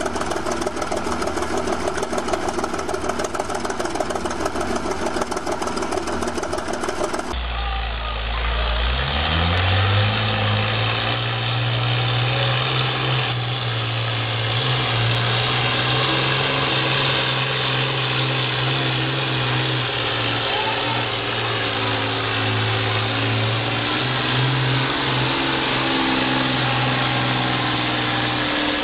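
Old bulldozer's engine running with a dense clatter. After a cut about 7 seconds in, a small red garden tractor's engine revs up over a couple of seconds and holds steady at high revs while it pulls a weighted sled.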